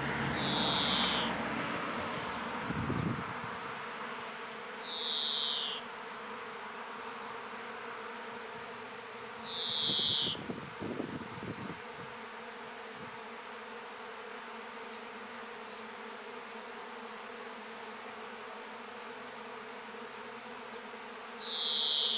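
A swarm of honeybees in flight, a steady dense buzzing hum. A short, high, slightly falling call sounds four times over it, at intervals of about five seconds or more.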